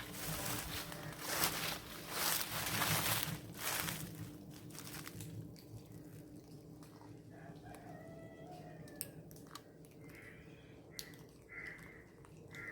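Crunching and rustling for the first four seconds or so, then a few short animal calls, some with a rising or falling pitch, in the later part.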